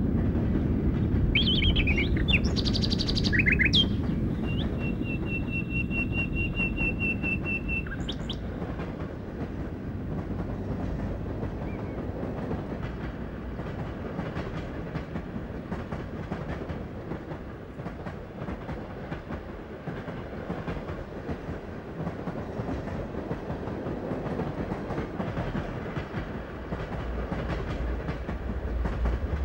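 A steady low rumble like a train running, with high bird-like chirps and then a held high whistling tone in the first eight seconds; the rumble eases off in the middle and swells again near the end.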